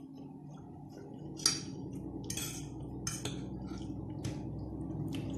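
Fork clinking and scraping against a dinner plate while food is picked up: about six short, separate strokes, the loudest about a second and a half in, over a faint steady low hum.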